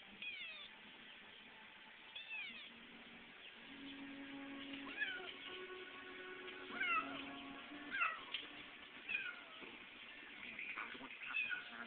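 A kitten meowing repeatedly, about seven short falling-pitched meows every second or two, which its owner takes for a plea for contact rather than hunger, as it has just been fed. Television music plays faintly underneath.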